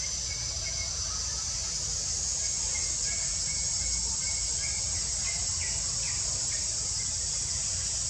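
A steady, high-pitched drone of insects with faint, short bird chirps over it and a low rumble of wind underneath.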